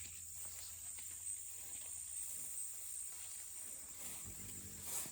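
Steady high-pitched buzz of a late-summer insect chorus, crickets and katydids. Near the end there is a faint low rustle.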